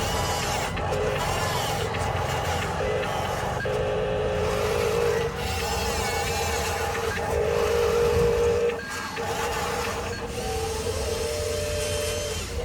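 Radio-controlled model trucks running, with a low motor and gear rumble under loud electronic tones that switch on and off in stretches of about a second.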